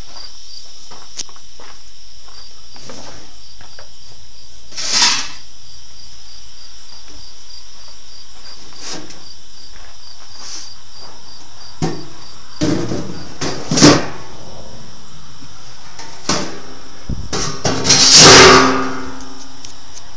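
Crickets chirping steadily, with several metallic knocks and clatters of steam pans being set into a metal-framed compartment. The loudest clatter comes near the end and rings briefly.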